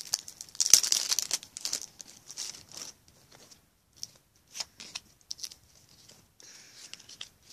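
A Match Attax trading-card pack wrapper being torn open and crinkled, with a run of rustling tears over the first three seconds, then scattered fainter crinkles and clicks.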